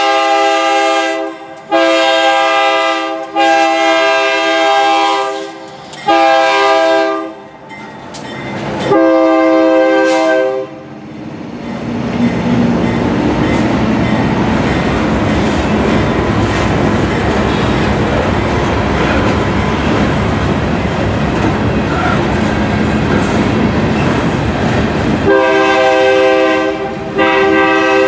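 Freight locomotive's air horn sounding about five long chord blasts as it approaches, then the locomotives and freight cars rumbling and clattering past over the rails. Near the end a horn chord sounds again over the rolling cars.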